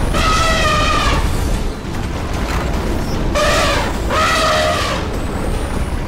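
Cartoon sound effect of a heavy boulder being pushed along: a deep, steady rumble. Over it come three long wavering high tones, the first about a second long at the start, then two shorter ones close together near the middle.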